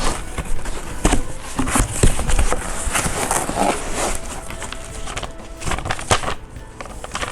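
Cardboard and plastic packaging being handled: a string of knocks and rustles as a box of parts is opened and emptied, over background music.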